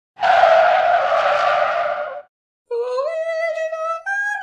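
A loud screech, like tyres skidding, lasting about two seconds, then after a short pause a high sung note that slides up and holds.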